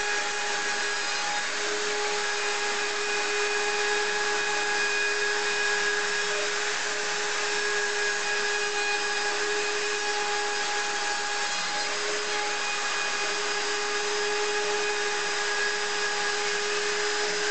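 DABEN CNC 50/70 router's spindle motor running with a steady whine as its bit carves a relief into a wooden block.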